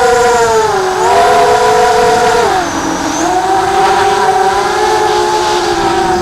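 Electric motors and propellers of a 250-size FPV quadcopter, four Cobra 2204 2300kv brushless motors on 4S driven by Little Bee 20A ESCs, whining in flight. The pitch rises and falls with throttle: high for the first couple of seconds, dropping about two and a half seconds in, then holding fairly steady.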